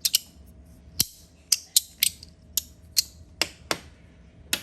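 Compoform magnetic fidget slider being worked back and forth in the hand: a string of about a dozen short, scratchy scrapes from its textured surfaces, with a few sharp clicks as the pieces snap into place.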